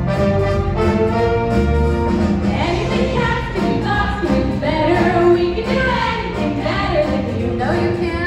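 Brass-heavy musical accompaniment playing held notes, joined about two and a half seconds in by a chorus of women singing over it.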